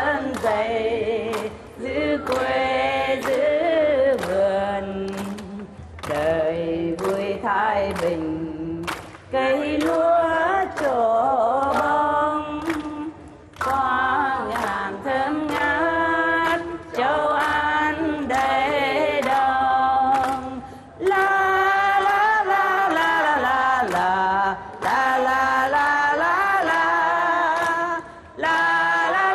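A woman singing a Vietnamese song unaccompanied into a microphone, phrase by phrase with short breaths between lines.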